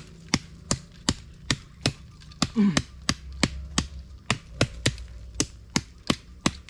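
Bolo machete (gulok) chopping into bamboo in a steady rhythm of about three sharp strikes a second.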